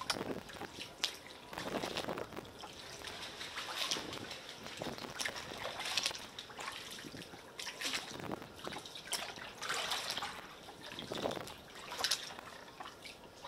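Kayak paddle strokes: water splashing and trickling off the paddle blade in an uneven rhythm, a swell roughly every one to two seconds.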